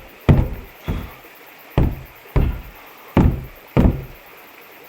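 Six heavy, hollow thumps in three pairs, each with a short low ringing decay, from blows against the caved-in water tank's wall.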